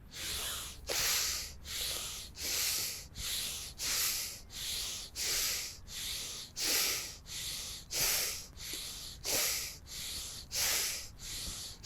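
Bhastrika (bellows breath) pranayama: forceful breaths pumped in and out through the nose in a steady, even rhythm of nearly two a second.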